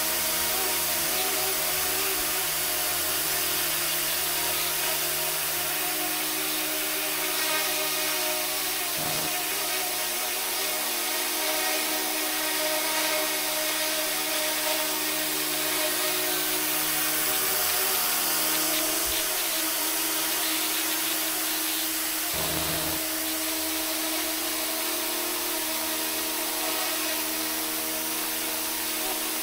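Radio-controlled AH-64 Apache scale helicopter running, its electric motor and rotors giving a steady whine with a hiss above it.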